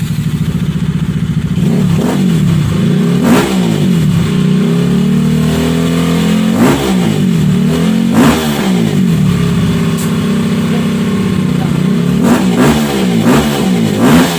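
Bajaj Pulsar RS200 single-cylinder engine running through a Yoshimura R77-style slip-on muffler, idling with several short throttle blips that rise and fall in pitch.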